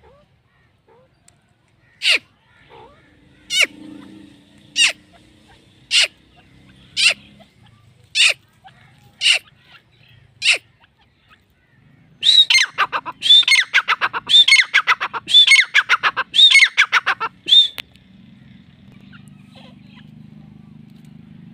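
Grey francolin calling loudly: eight sharp single notes a little over a second apart, then, about halfway through, a fast run of repeated calls lasting about five seconds.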